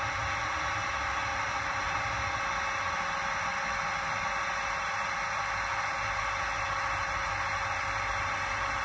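Steady, unchanging running noise from a model railway digital sound decoder's small speaker, thin and hissy with no deep bass, while the model crane's boom is lowered.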